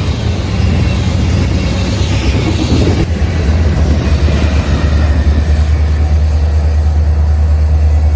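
Diesel locomotive running with a steady low rumble that grows stronger about five seconds in.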